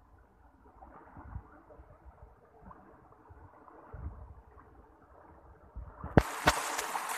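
Fast, muddy river water rushing and splashing around people wading across it, with wind and handling rumble on the phone microphone. About six seconds in, a loud splashing hiss with a couple of sharp clicks as the microphone comes close to the churning water.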